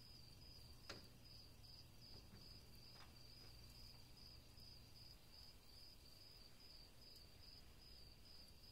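Near silence: faint night ambience of crickets chirping steadily. There is a soft click about a second in and a fainter one around three seconds.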